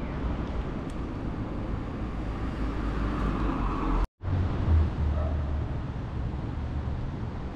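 Street ambience of road traffic running steadily, with wind buffeting the microphone; after a cut about four seconds in, the low wind rumble grows stronger.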